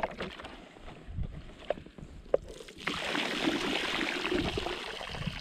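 A few knocks from the line and gear being hauled out of a hole in the ice. About three seconds in, a steady rush of water begins as a plastic bottle is lifted out of the hole, spilling and draining.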